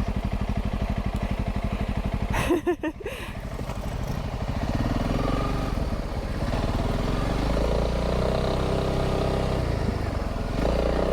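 Single-cylinder engine of a Honda CRF300 dual-sport motorcycle running at low speed on sand, its fast firing pulses rising and falling with the throttle. There is a brief burst of rattling noise about two and a half seconds in.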